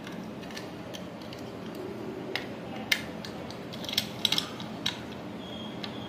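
Small plastic remote fan-controller module and its wire connectors being handled and fitted into a ceiling fan's motor housing: scattered light clicks and rattles, a few sharper ones in the second half.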